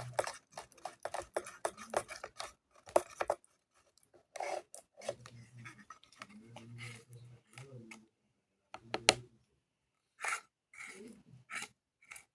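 Glue and slime activator being stirred together in a container: a quick run of sticky scraping clicks, then scattered scrapes and squelches.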